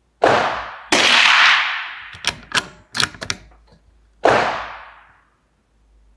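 Unsuppressed .22 LR rifle shots, firing high-velocity CCI Stinger rounds that break the sound barrier: three sharp cracks, about a quarter second, one second and four seconds in, each with a long ringing tail. A quick run of sharp clicks comes between the second and third shots.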